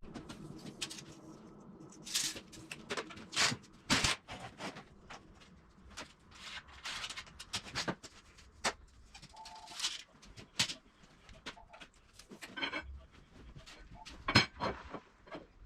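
Scattered, irregular knocks and clinks of tools and metal being handled and lightly struck at the workbench, with a few sharper strikes about two, four and fourteen seconds in.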